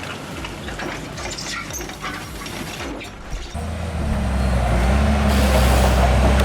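Heavy truck engine: rumbling and clattering at first, then a loud, steady low drone that comes in a little past halfway, with a hiss added near the end.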